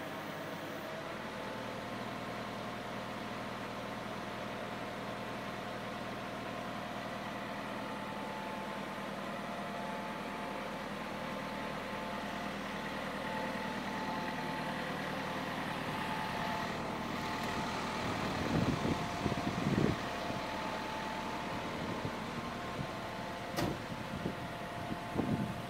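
Truck engine running steadily to power a truck-mounted knuckle-boom crane, with a steady whine over the engine hum. A few low thumps and one sharp click come near the end.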